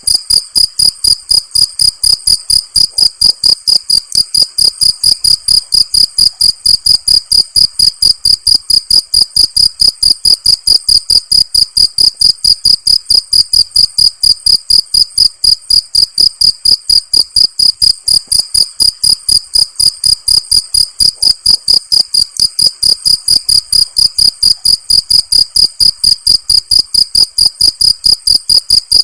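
Cricket chirping loudly: a high, pure-toned chirp repeated at a perfectly even pace of about three to four chirps a second, without a break.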